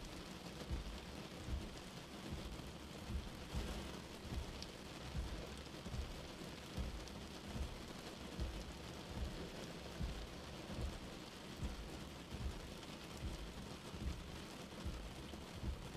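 Steady rain falling on a car windscreen while the wipers sweep slowly back and forth, a low thump at each stroke a little more than once a second.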